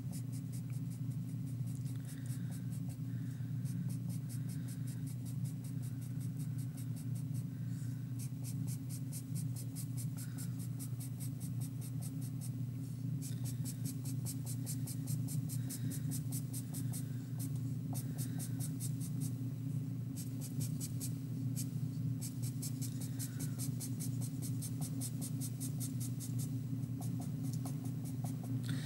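Black marker scratching quick short strokes on paper, in runs of many strokes with brief pauses between them, over a steady low hum.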